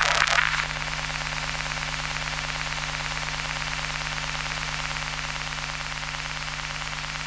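Electromagnetic emissions of an old Sony CD player reading data, picked up as electrical interference. A brief burst in the first half second settles into a steady static hiss over a low electrical hum.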